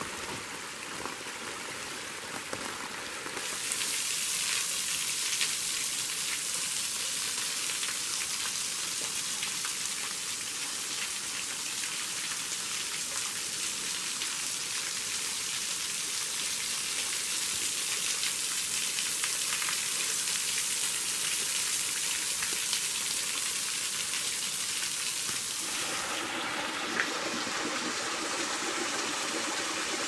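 Small waterfalls: water sliding over a rock slab at first, then from about three seconds in a louder steady hiss and patter of thin streams falling from a rock overhang and splashing onto the rock below. Near the end the sound shifts to another small waterfall spilling into a shallow pool.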